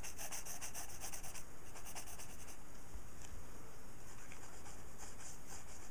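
Sketching strokes of a hand-held drawing point scratching on paper: quick repeated strokes for the first couple of seconds, then steadier scratching.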